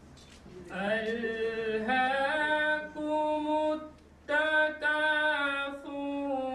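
A man's voice reciting verses of the Quran in Arabic as a melodic chant (tilawat), in long held, gliding notes. It begins about a second in and breaks briefly for breath twice.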